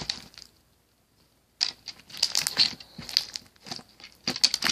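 Very sticky slime with beads mixed in, squished and pulled apart in the hands: after a brief lull, a dense run of sharp, wet crackles and clicks from about a second and a half in.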